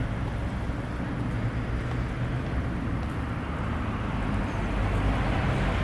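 Road traffic on a street: a steady rumble of passing vehicles that grows a little louder near the end.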